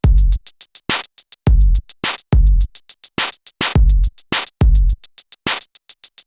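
Electronic drum-machine beat: deep kick-drum thuds with fast, steady hi-hat clicks between them.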